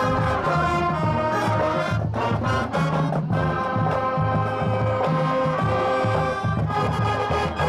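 High school marching band playing a brass-led stand tune, with trombones and trumpets holding steady notes over percussion.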